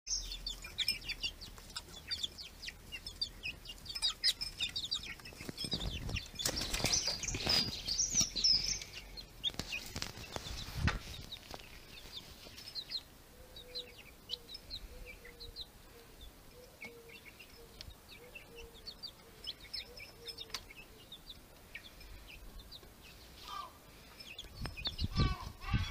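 Chicks and young chickens peeping in many short, high chirps, thick at first and thinning out about halfway through. A few louder scuffling noises come in the first half.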